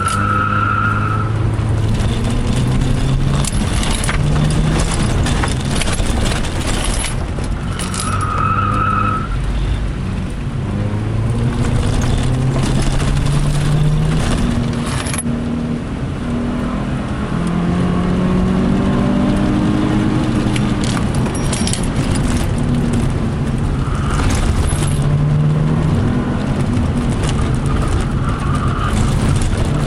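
Subaru Impreza's flat-four engine heard from inside the cabin, revving up and falling back over and over as it is driven hard through the gears, with knocks and rattles throughout. A brief high squeal comes near the start and again about eight seconds in.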